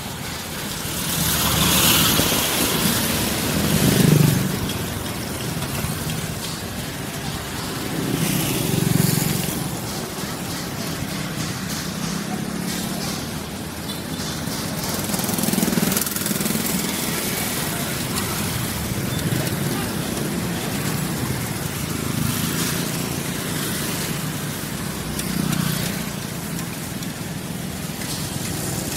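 Street ambience: vehicles passing on the road, swelling and fading several times, with people talking in the background.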